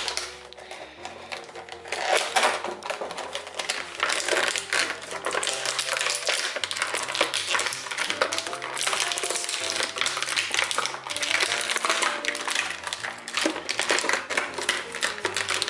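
Stiff clear plastic blister packaging crackling and clicking in irregular bursts as an action figure is worked out of its tray. Background music with a stepped bass line plays underneath.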